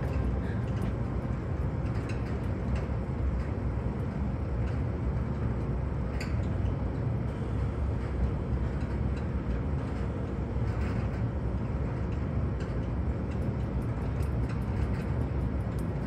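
Steady low rumble of background noise with a faint hum and a few faint scattered clicks.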